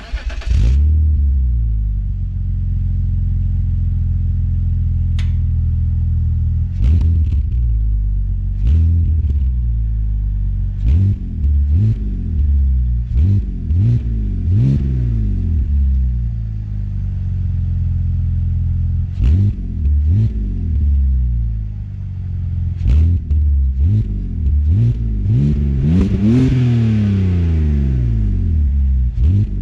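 BMW X3 E83 3.0i's M54B30 straight-six engine starting up and idling, heard at the exhaust, then revved in a run of short throttle blips with idle between and one longer rev near the end.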